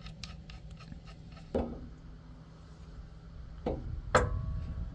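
Handling of an adjustable track bar: light clicks, a knock, then two sharper metal knocks near the end, the louder one leaving a short metallic ring.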